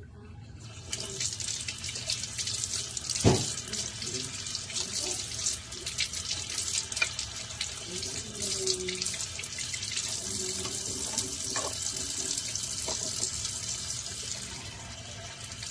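Tap water running into a kitchen sink, turned on about a second in, with scattered clinks and knocks of dishes being hand-washed, one loud knock a few seconds in.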